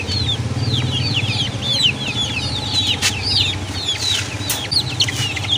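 A crowd of young chickens peeping nonstop: rapid, overlapping high cheeps that slide downward in pitch, over a low steady rumble.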